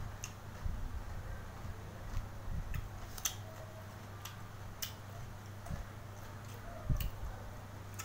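Person eating: chewing with scattered small clicks and smacks, over a steady low hum.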